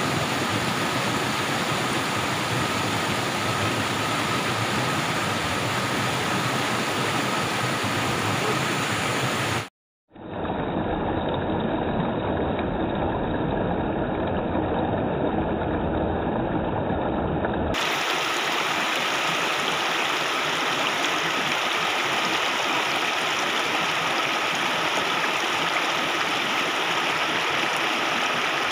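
Rushing water of a rocky stream spilling over small falls and cascades, a steady hiss. It cuts out briefly about ten seconds in, returns duller for several seconds, then full again.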